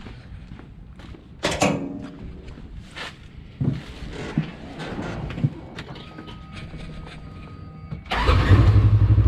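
A few clicks and knocks, then a faint steady whine, then the Polaris RZR XP 1000's parallel-twin engine starts near the end and settles into a steady idle. It fires right up on its newly fitted fuel pump, which replaced the weak pump behind the misfire code.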